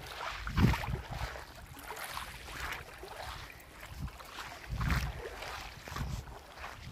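Uneven gusts of wind rumbling on the microphone, over faint sloshing of shallow seawater.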